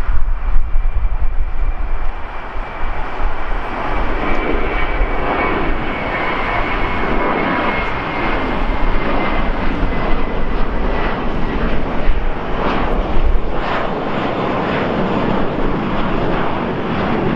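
Twin-engine Airbus A321 jet airliner climbing out after takeoff: a steady jet roar with a deep rumble, and a faint high whine that slides slowly down in pitch as the plane moves away.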